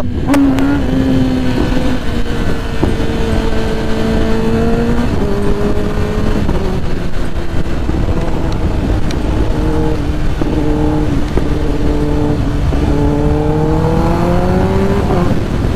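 Kawasaki ZX-10R inline-four running through an aftermarket exhaust, heard from the rider's seat while riding, over heavy wind rush. The engine note sags slowly and drops in pitch about five seconds in. It rises as the bike accelerates in the last few seconds.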